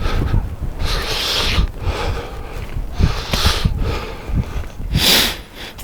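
A hiker's heavy breathing, three loud breaths about two seconds apart, over the rumble of wind buffeting the microphone.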